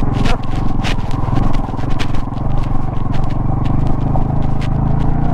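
Motorcycle engine running steadily at low speed, with frequent knocks and rattles as the bike rolls over a loose, stony dirt track.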